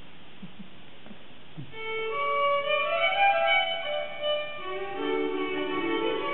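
Fiddle music starting up about two seconds in, playing a Norwegian folk dance tune, with lower held notes joining a few seconds later.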